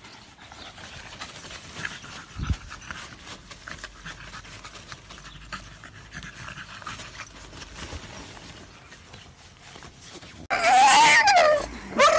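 A dog panting quickly and softly, then, near the end, breaking into a loud whining cry that rises and falls in pitch.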